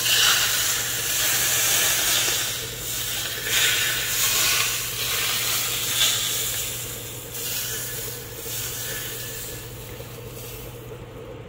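Hot brown butter poured over cooked deer steaks, sizzling and hissing in several surges that fade away toward the end.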